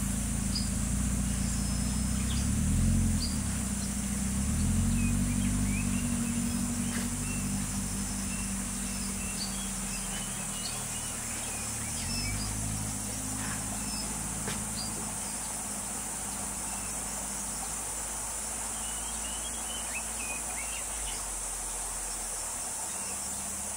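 Small hatchback car's engine running as it drives across a grassy field, its pitch rising and falling a few times with the throttle and fading as the car moves away. A steady high insect drone and scattered bird chirps run over it.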